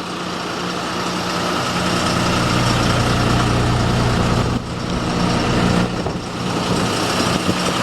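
Ford F650's 5.9-litre Cummins diesel idling steadily, with a brief dip in level about four and a half seconds in.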